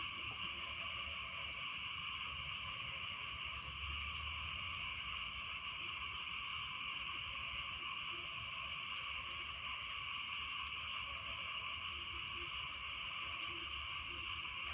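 Steady night chorus of frogs and insects calling after rain, a continuous unbroken drone with scattered fainter calls beneath it.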